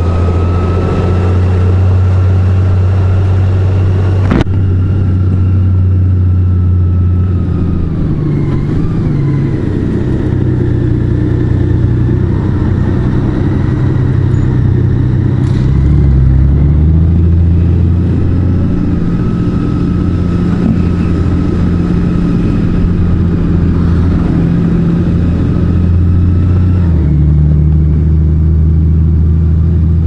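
Large motorcycle's engine running steadily under way, its note holding for stretches and shifting in pitch a few times as the speed changes. A brief click about four seconds in.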